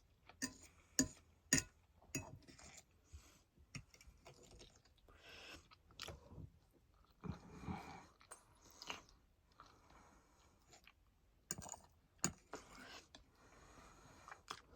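A person chewing and biting food close to the microphone, most likely rotisserie chicken: irregular mouth clicks and soft crunches, with several sharper clicks in the first two seconds and again around twelve seconds in.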